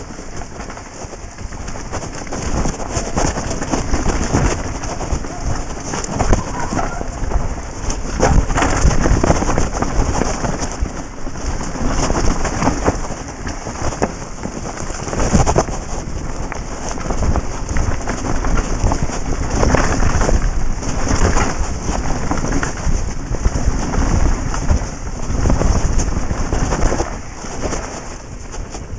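Steady wind rumble on the microphone with a constant clatter of knocks and rattles from a mountain bike and its tyres going fast over a rough dirt trail.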